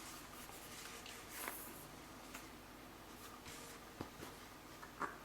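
Faint handling sounds of small items being turned over by hand: a soft rustle, then a few light clicks and taps.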